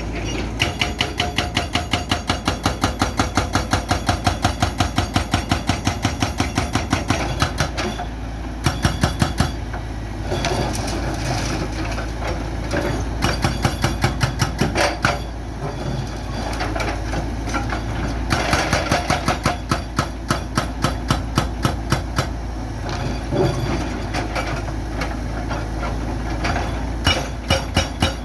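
Hydraulic breaker on a Sany excavator hammering concrete in runs of rapid, even blows, about six a second, with short pauses between runs. The excavator's diesel engine runs steadily underneath.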